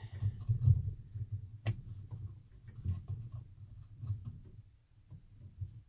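Hands working fabric back into a 3D-printed plastic hem guide on a coverstitch machine: soft, uneven rustling and handling noise with one sharp click a little under two seconds in.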